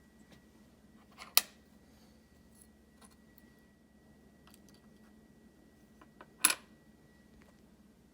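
Two sharp clinks of small hard objects being handled or set down, about five seconds apart, each with a lighter tick just before it, over a faint steady high whine.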